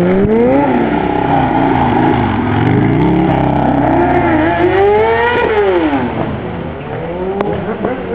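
Harley-Davidson Sportster's V-twin engine revving hard during a wheelie and stunt riding. The pitch climbs near the start, wavers up and down, and climbs again to a peak a little past halfway before dropping off.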